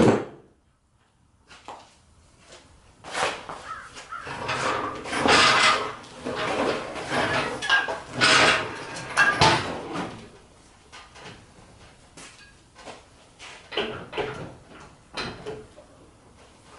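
Irregular clunks, scrapes and rattles of metal parts and tools being handled during an engine install, busiest in the middle and thinning to scattered clicks near the end.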